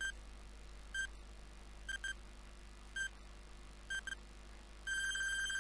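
Countdown timer beeping once a second with short high beeps, ending in a long held beep about five seconds in as the count reaches zero.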